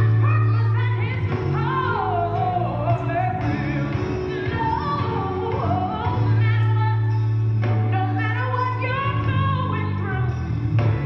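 Music: a song with a voice singing a wavering melody over long, sustained bass notes.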